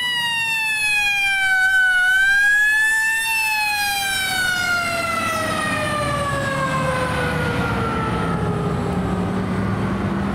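Fire engine siren holding a high steady pitch, dipping and rising again about two to three seconds in, then winding slowly down in pitch. The truck's engine running grows louder beneath it as the siren falls.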